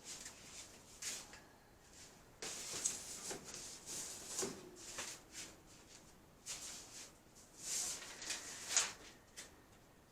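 Irregular rustling and scuffing from hands handling packaging: a string of short crinkles and scrapes, the loudest near the end.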